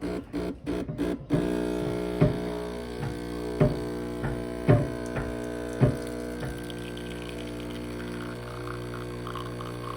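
Espresso machine's pump buzzing: it pulses on and off until about a second in, then holds a steady hum, with a few sharp clicks in the first half.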